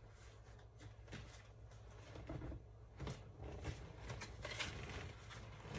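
Faint rustling with a few light clicks and knocks, spread out, as dropped tarot cards are gathered up off the floor.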